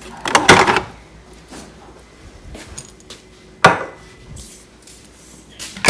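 Kitchen containers and jars being handled at a refrigerator: a loud clattering rattle about half a second in, then two sharp knocks, one past the middle and one near the end.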